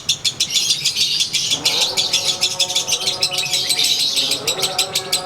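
Konslet lovebird's 'ngekek' song: a long unbroken run of rapid, harsh high chattering notes, about ten a second, with a lower steady-pitched tone joining about one and a half seconds in.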